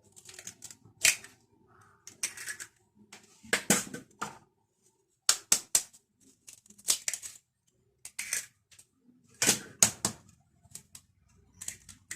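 Eggs being tapped and cracked open against the edge of a bowl: a string of sharp taps and cracks, in small clusters spread irregularly over several seconds.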